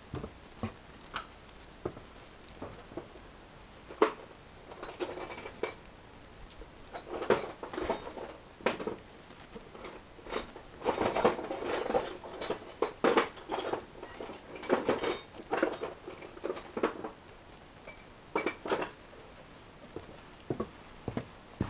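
Small metal tools and parts being handled, clinking and knocking in scattered single clicks and short busy clusters, busiest through the middle.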